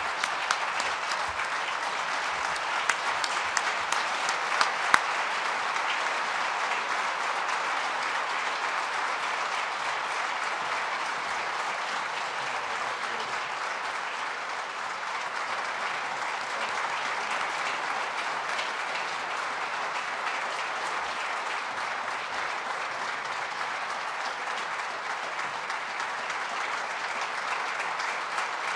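Audience applauding steadily and without a break, with a few louder single claps standing out in the first few seconds.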